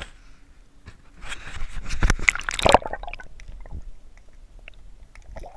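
Water splashing and sloshing close to the microphone as a spotted bay bass is lowered by hand into the water, for about a second and a half, then cutting off sharply to a muffled underwater hush with a few faint clicks as the microphone goes under.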